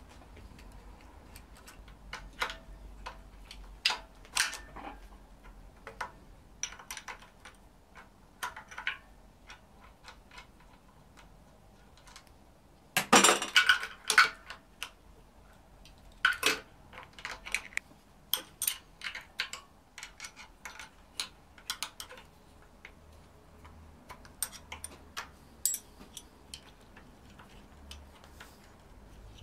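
Hand wrenches and loose metal parts clicking and clinking against a BMW engine's timing chain and camshaft sprocket as the sprocket bolts are worked loose, with a louder rattling burst about halfway through.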